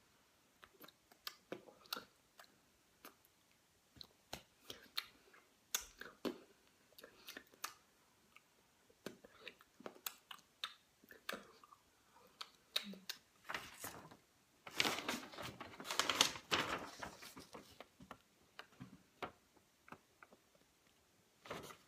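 Scattered soft clicks and taps. About fifteen seconds in comes a few seconds of paper rustling as a folded city map is handled.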